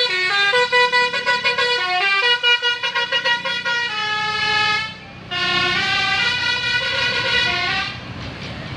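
A bus's 'telolet basuri' musical horn playing a quick tune of stepped notes. It breaks off briefly about five seconds in, then plays on and stops about eight seconds in, leaving steady traffic noise.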